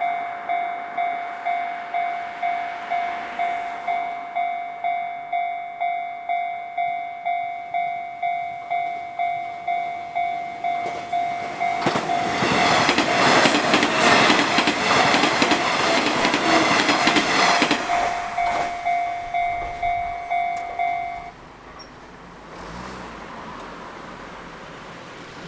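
A Japanese level-crossing warning bell rings its 'kan-kan' tone at an even beat, about one and a half strokes a second. About halfway through, a Nishitetsu electric train passes over the crossing, its wheels clattering rhythmically over the rail joints. The bell stops a few seconds after the train has gone, leaving a low traffic hum.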